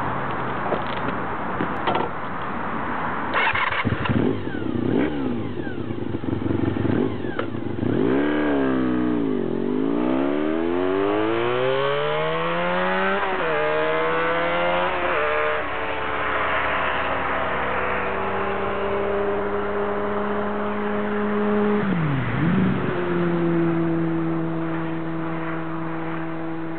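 Honda VFR400R NC30's V4 engine being revved, its pitch swooping down and back up several times and climbing in steps, then holding steady revs with one brief dip near the end.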